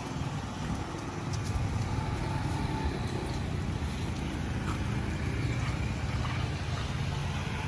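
Road traffic: a steady low vehicle rumble.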